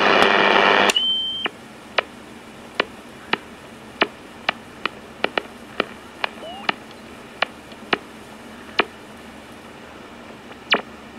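Sony ICF-5900 Skysensor shortwave radio being switched and tuned: the broadcast it is playing cuts off about a second in as the band knob is turned, a brief steady whistle follows, then a faint hiss with scattered sharp crackles and clicks.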